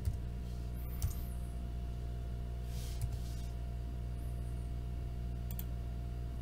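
A few scattered computer keyboard and mouse clicks over a steady low electrical hum.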